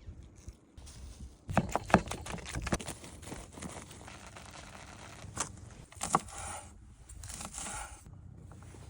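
Cooking handling sounds: a quick run of sharp knocks and clicks, the loudest about two seconds in, then a couple more knocks and a stretch of scraping, crinkling rustle.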